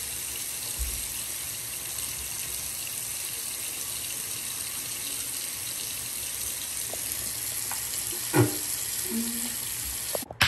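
Bathroom sink faucet running steadily into the basin, shut off abruptly just before the end. A single brief knock comes about eight seconds in.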